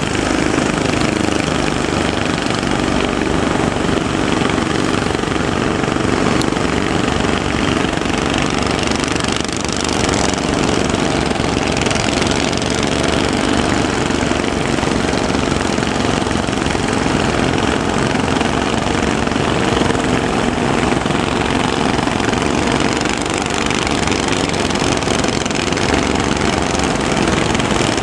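A small fishing boat's motor running steadily under a continuous rushing noise.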